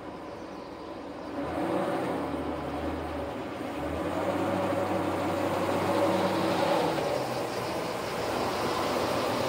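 A 1976 Corvette's 350 small-block V8 running as the car drives up to the garage, getting louder about a second and a half in.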